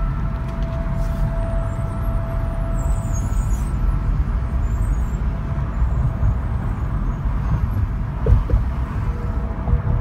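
An unexplained steady droning tone in the sky, heard over a constant low outdoor rumble. The tone fades out about three seconds in, and there is a brief thump near the end.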